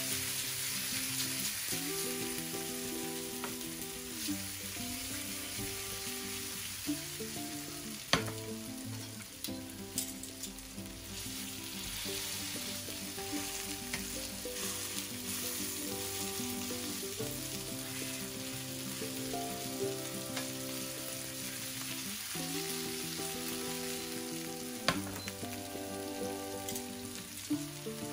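Salmon fillets sizzling steadily in hot oil in a frying pan, with a few sharp clicks of metal tongs against the pan as the fillets are turned.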